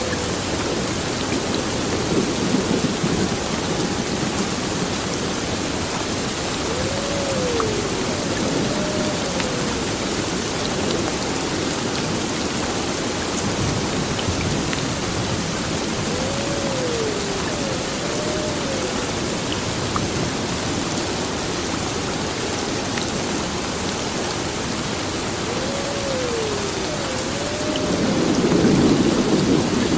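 Heavy rain falling steadily, with thunder rumbling near the end. A pair of short rising-and-falling tones recurs about every nine seconds under the rain.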